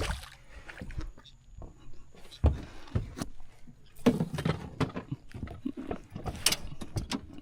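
Irregular knocks, clicks and thumps of fishing tackle and gear being handled in a small boat while a hooked fish is brought in.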